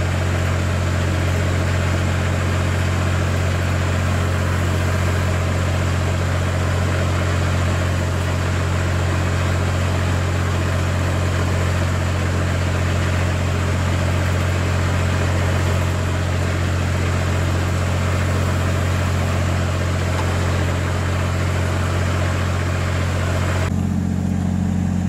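An engine idling steadily, a constant low hum with a hiss over it. Near the end the hiss drops away and the hum takes on a slightly different low tone.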